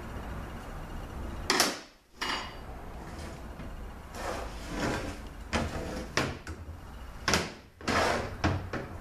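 Heavy clunks and scrapes from a Ford AOD automatic transmission case being handled and turned over on a workbench: a string of short knocks and sliding scrapes, with a couple of abrupt breaks.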